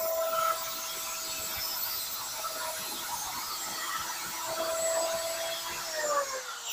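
Handheld electric wood cutter machine (small circular saw) with a 48-tooth blade running, with a steady motor whine and a rough scraping noise as the blade trims overhanging laminate flush from a door panel. The whine's pitch falls near the end.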